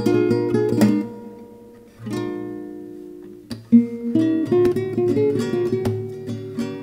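Background music: acoustic guitar picking quick notes, with one chord left to ring out and fade about two seconds in before the picking starts again.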